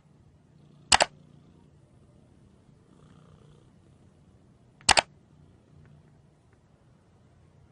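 Two sharp double clicks, about a second in and again about four seconds later, over a faint low steady hum.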